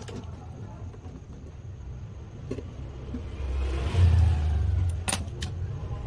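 Small metal hand tools clicking and clinking against refrigerator copper tubing. A low rumble swells past the middle and fades about a second and a half later.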